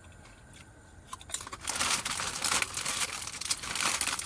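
A kettle-chip bag crinkling as it is handled, starting about a second and a half in and going on in a dense, irregular crackle.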